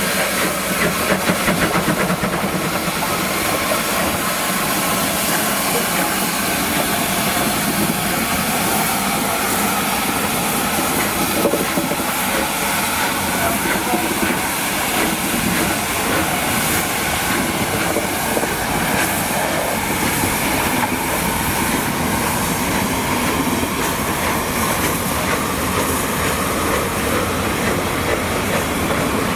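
Steam locomotive 35028 'Clan Line', a three-cylinder Bulleid Merchant Navy class Pacific, moving off slowly with steam hissing from its open cylinder drain cocks. Its wheels and the following coaches roll and clack over the rail joints.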